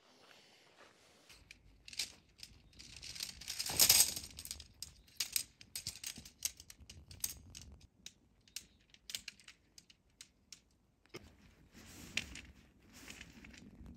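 A tent being unpacked and laid out: nylon fabric rustling and crinkling, with many small sharp clicks and clinks of tent hardware. The loudest moment is a brief crinkly rustle about four seconds in.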